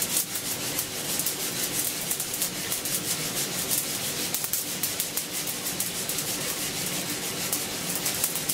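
Brazilian coffee beans rattling steadily inside a hand-held mesh roaster as it is shaken back and forth over a gas flame, a dense, even shaker-like patter of many small clicks. The roast is near the end of first crack.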